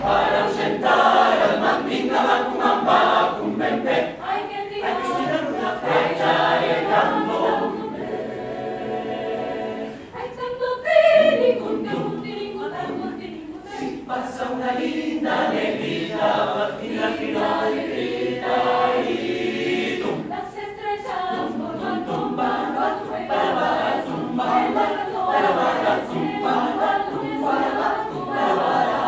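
Mixed choir singing a cappella in several parts, with no instruments. The voices thin out and drop in level briefly about ten seconds in, then build again.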